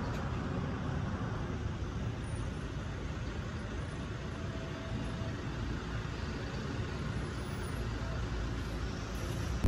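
Steady background noise of road traffic: an even low rumble with hiss, no single vehicle standing out.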